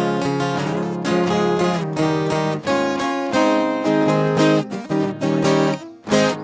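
Viola caipira and acoustic guitar playing an instrumental introduction, strummed and plucked, without singing. The playing dips about six seconds in, gives one last strum and breaks off at the very end.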